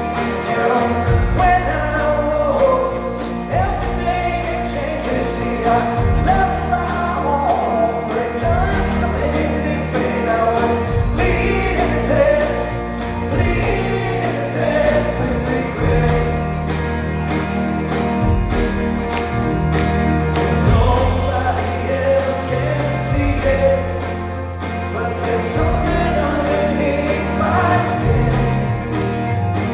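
Rock band playing live, with a sung lead vocal over bass notes and a steady drum beat.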